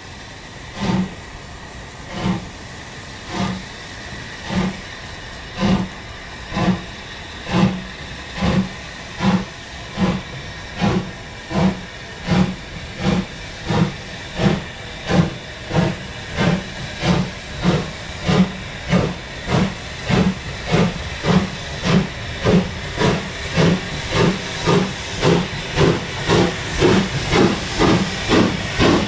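Steam locomotive exhaust beats over a steady hiss of steam. The beats quicken from about one a second to about two a second and grow louder as the engine gets away and accelerates.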